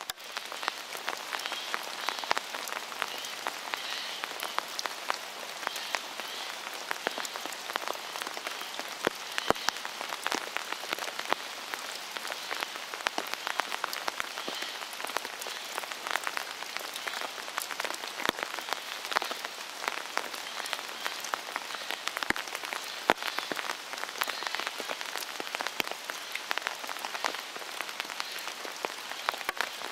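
Steady rain, its drops ticking on an open umbrella and on the fallen leaves, with many sharp single drop hits through an even hiss.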